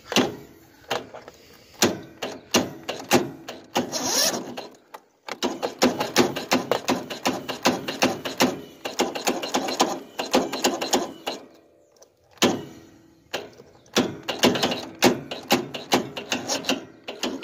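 Electric starter on a Yard Machines lawn tractor's 14.5 OHV engine, energized with the key: a fast run of clicks in three bursts with short breaks between them, and the engine never turns over. The starter is too weak to crank the engine.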